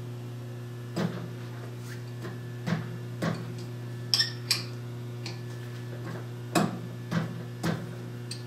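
Scattered sharp metal clicks and taps of a wrench working the chuck bolts on a lathe chuck as they are tightened to torque, about eight in all, over a steady electrical hum.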